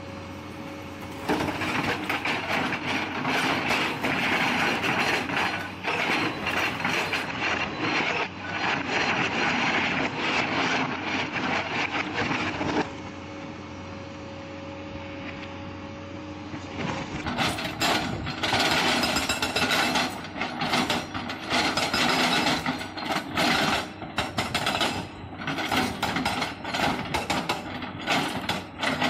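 Epiroc (Atlas Copco) MM1500 hydraulic rock breaker on an excavator hammering rock with rapid, continuous blows. It stops for a few seconds in the middle, leaving the excavator's steady engine hum, then hammers again in choppier stop-start runs.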